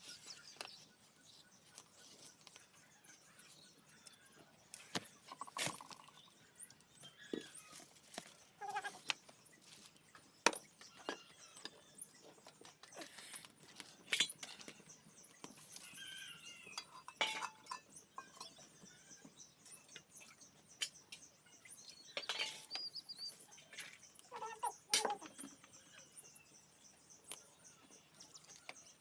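Short animal calls several times, among scattered clicks and knocks.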